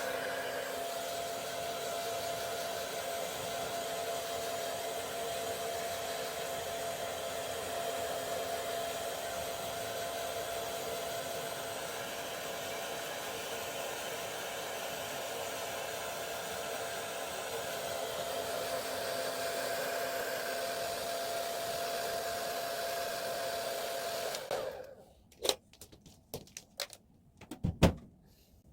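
Hair dryer running steadily with a constant whine, switched off near the end, followed by a few short clicks and one sharp knock.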